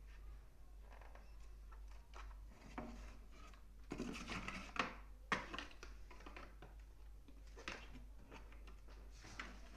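Plastic parts of a cordless GSM landline phone being handled: light clicks, taps and rustles, busiest about four to six seconds in, with two sharper clicks about five seconds in.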